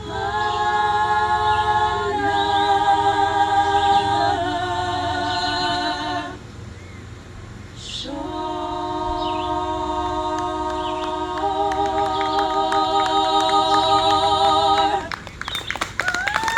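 A group of voices singing unaccompanied, holding long chords in harmony with a slight vibrato. There are two phrases, the first changing chord twice and the second once, with a short break between them.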